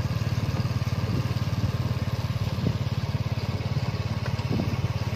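Tuk tuk's motorcycle engine running steadily with a fast, even low pulse while under way, heard from the passenger carriage.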